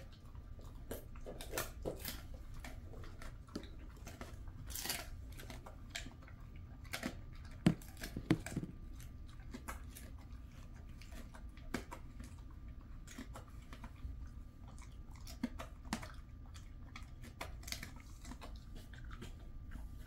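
A Jindo dog chewing a dried chicken foot, with irregular crunches and cracks of bone and skin throughout.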